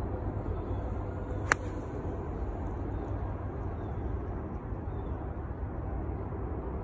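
An 8 iron striking a golf ball: one sharp click about a second and a half in, over a steady low background rumble.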